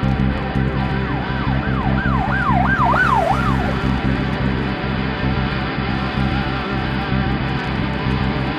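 Electric-guitar rock music with a steady beat; about a second in, a lead line plays a rapid run of swooping pitch bends, down and up several times in quick succession for a couple of seconds.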